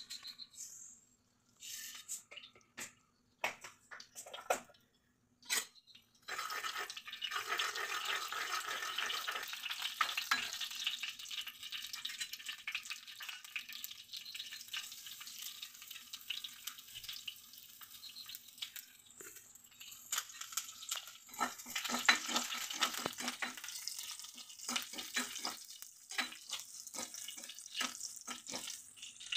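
Seeds spluttering in hot oil in a nonstick kadai, the tempering stage of a stir-fry: a few scattered pops, then a steady crackling sizzle from about six seconds in. Near the end a spatula stirs the pan, adding scraping strokes, over a faint steady hum.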